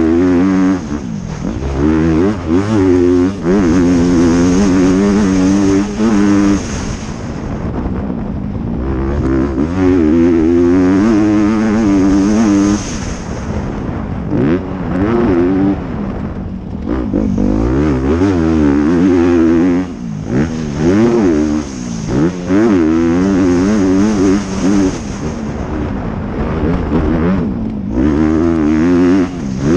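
Honda CRF250R single-cylinder four-stroke motocross engine heard from the rider's helmet, revving hard and climbing in pitch through the gears, with the throttle shut and the revs dropping briefly every few seconds before it pulls again.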